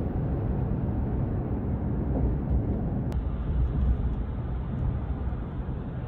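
Road and engine noise inside a moving car's cabin at expressway speed: a steady low rumble, with one light click about three seconds in.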